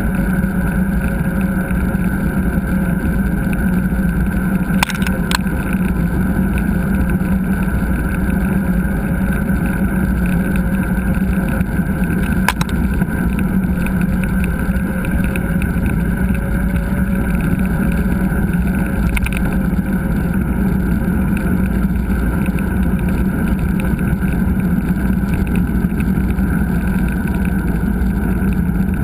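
Steady rumble and rush of riding noise picked up by a GoPro on a mountain bike, with a few short clicks and rattles.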